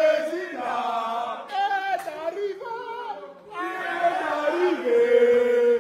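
A group of men singing a chant together, in several short phrases with brief breaks, the last ending on a long held note: a victory celebration song.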